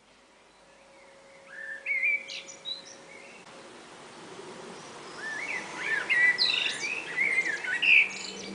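Birds chirping and calling in short, quick rising and falling phrases, sparse at first and busier in the second half, over a steady background hiss that slowly swells in level.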